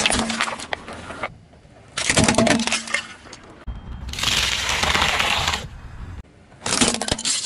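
A car tyre rolling over and crushing objects: a plastic drink cup and celery stalks crack and crunch. The sound comes in about four separate bursts, one of them a longer hissing rush about four seconds in.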